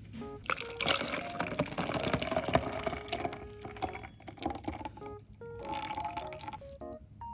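Canelé batter pouring in a thick stream from a glass bowl into a plastic tub, splashing and bubbling as it fills. The pour is heaviest in the first few seconds, with a shorter second pour near the end.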